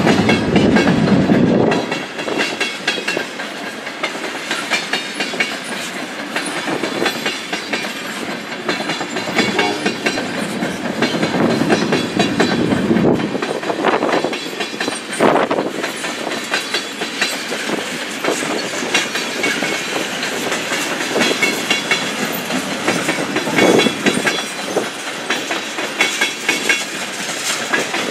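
Freight train of tank cars rolling past, wheels clicking steadily over the rail joints, with a heavier low rumble in the first couple of seconds.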